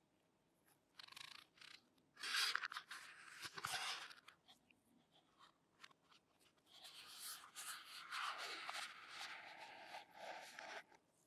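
Quiet rustling and scraping of something being handled close by, in three bursts: a short one about a second in, a longer one of about two seconds, and a run of about four seconds in the second half.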